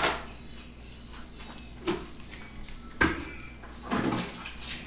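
Close-up mouth sounds of eating by hand: wet lip smacks and chewing as a handful of rice, beans and meat is taken off the fingers. Sharp smacks come about two, three and four seconds in.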